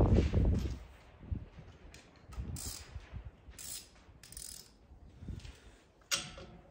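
Socket ratchet and metal hand tools being handled while bolts are loosened on a tractor's front frame: scattered short ratcheting clicks and metal clinks. There is a heavy low thump at the very start and a sharp click near the end.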